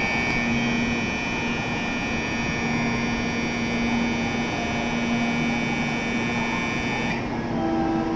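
Platform departure bell ringing steadily for about seven seconds, then cutting off, over the low hum of an N700-series Shinkansen train standing at the platform.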